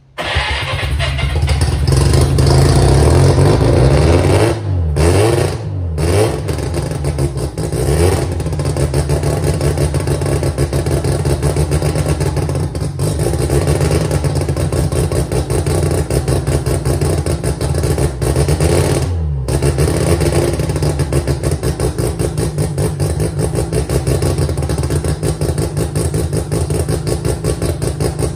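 Mazda R100 drag car's engine starting and then running on the stands. It is blipped a few times in the first several seconds and once more about two-thirds through, each time the revs falling back, and in between it settles into a steady idle.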